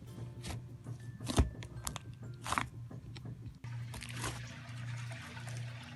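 Foam-bead slime being squeezed and kneaded, crackling and crunching in quick irregular snaps, mostly in the first half, over a low steady hum.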